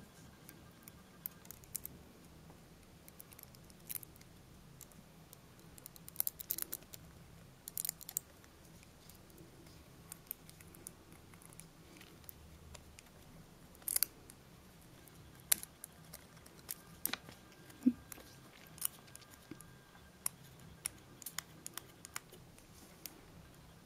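Faint scattered clicks and light scratches of a wooden orange stick pressing and rubbing on foil-covered fingernails, smoothing the nail foil down.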